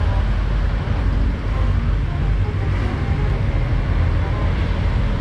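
Steady low rumble of motor-vehicle noise.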